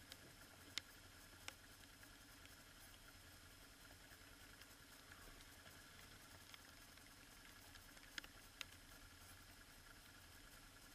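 Near silence: a faint steady hum, broken by a handful of sharp ticks, a few near the start and a few about eight seconds in, typical of raindrops striking the camera.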